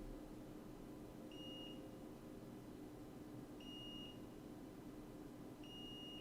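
Multimeter continuity beeper sounding three short, high beeps about two seconds apart as probes touch a jumper wire's pads, the tone signalling a closed circuit.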